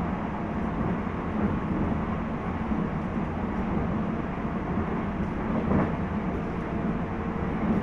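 Running noise of a JR East 719 series electric multiple unit, heard aboard motor car KuMoHa 719-1: a steady rumble with a low hum, and a brief louder knock about six seconds in.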